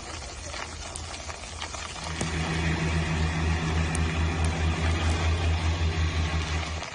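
A vehicle engine running with a low, pulsing hum that grows louder about two seconds in and stops near the end.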